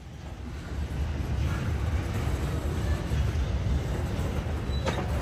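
A cut of freight cars rolling slowly on yard track as the train is shoved into place during switching: a low, steady rumble. A sharp click comes near the end.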